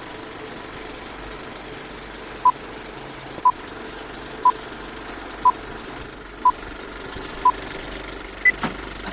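Old-film countdown sound effect: a steady film-projector whirr with crackle, and a short beep once a second, six in all, then a single higher-pitched beep near the end.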